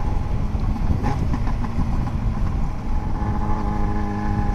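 Yamaha XJ6's inline-four engine bellowing as the motorcycle is ridden, over a steady low rumble of wind and road noise. From about three seconds in, its note holds steady.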